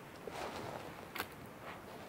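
A wooden stick being laid and pushed into a bed of ashy campfire coals, with soft crunching and a sharp click about a second in.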